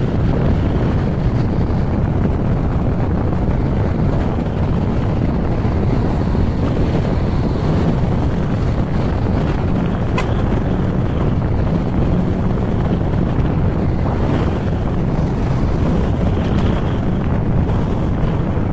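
Steady wind noise buffeting the camera microphone on a moving scooter, the engine and road noise lost beneath it, with a single brief click about ten seconds in.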